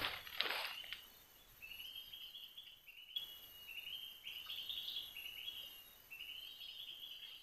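Faint, high-pitched trilling calls from forest wildlife, repeated in several long phrases of about a second each.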